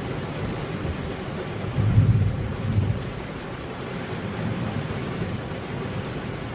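Heavy rain falling steadily on a road, an even hiss, with a brief low rumble about two seconds in that swells twice before settling back into the rain.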